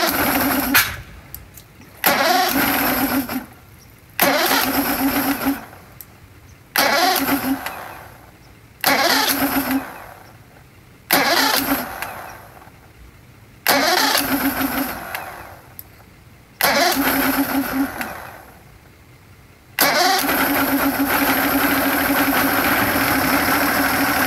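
Mercury 200 V6 two-stroke outboard on a cold start after three months sitting: it comes on in about seven sudden bursts that each fade away over a second or two. About twenty seconds in it settles into steady running.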